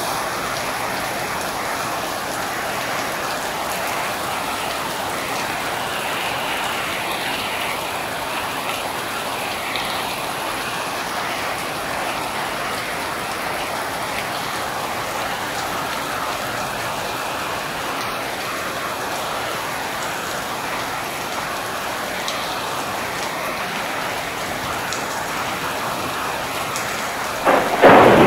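Steady rain falling, an even hiss of drops. A sudden, louder surge of sound starts right at the end.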